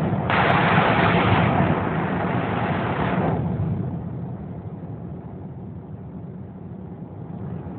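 Steady engine and road drone inside a moving car. A loud rushing hiss starts suddenly a moment in and stops after about three seconds.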